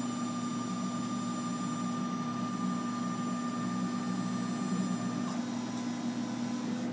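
Emco PC Mill 50 bench-top CNC mill driving its table along the X axis while referencing: a steady whine over a constant low hum. The whine cuts off with a faint click about five seconds in as the axis stops.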